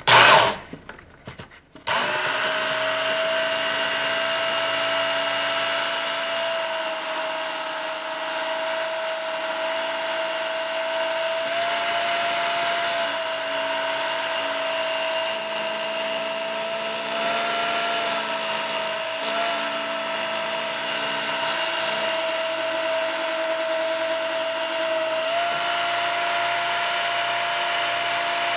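Work Sharp belt sharpener starting up after a few clicks of handling, then its motor and belt running with a steady whine, changing slightly now and then as a steel ice auger blade is held to the medium-grit belt.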